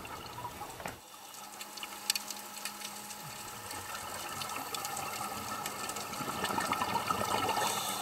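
Underwater water noise with scattered sharp clicks, growing louder toward the end; a faint steady hum runs under it through most of the first part.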